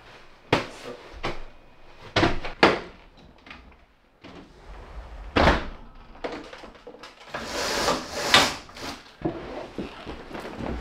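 Sharp knocks and clicks of handling, then a sliding glass patio door unlatched with a loud clack about five seconds in and slid along its track with a rushing noise near the end.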